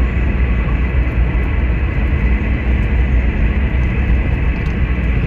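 CRT SS 9900 CB radio receiver putting out a steady static hiss on an open channel with no station readable, over the low rumble of the car on the road.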